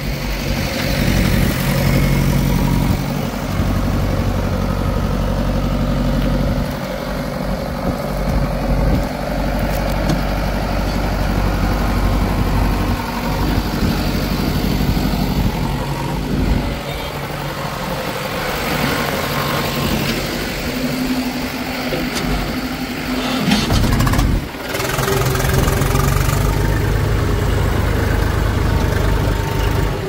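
Diesel engine of heavy farm and construction machinery running under changing load, rising and easing. It drops out briefly about 24 seconds in, then runs on more steadily.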